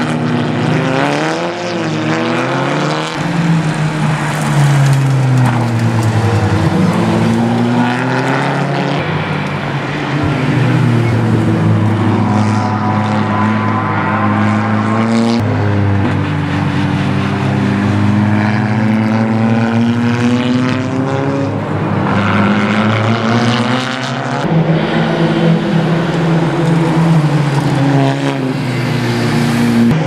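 Racing touring-car engines, Seat Leóns among them, accelerating and braking through corners: a loud engine note that rises and falls with gear changes, changing abruptly a few times as one car gives way to another.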